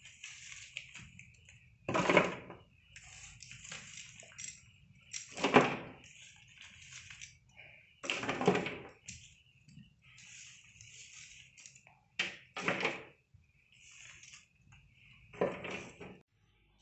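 Soft rustling and about six dull thuds a few seconds apart as loose vegetables (potatoes, beans, tomatoes) are handled on a hard floor.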